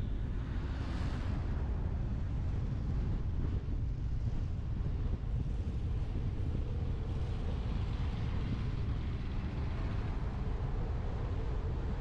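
Wind rushing over a roof-mounted GoPro Hero 8 action camera's microphone on a moving Tesla Model X, with road and tyre noise underneath. A steady low rumble, with a brief brighter gust about a second in.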